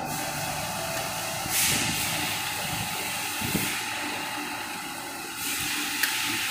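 Steady hissing noise that gets louder about a second and a half in, with a single sharp click near the end.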